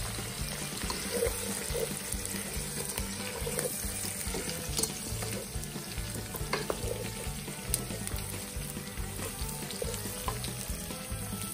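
Food sizzling as it fries, stirred with a utensil that clicks and scrapes against the pan now and then.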